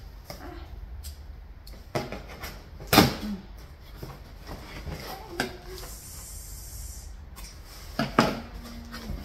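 Cardboard shipping box being handled and opened: flaps flexing and knocking against each other, with packing material rustling. There are a few sharp knocks, the loudest about three seconds in and two more close together near the end.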